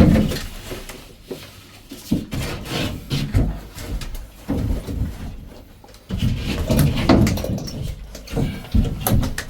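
Knocks, thuds and scraping of a plasterboard sheet being handled and lifted into place on a ceiling, with a loud thump at the start.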